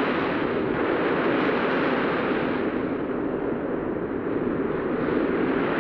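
Heavy sea surf breaking and rushing around a rowing boat: a loud, steady wash of noise with no let-up.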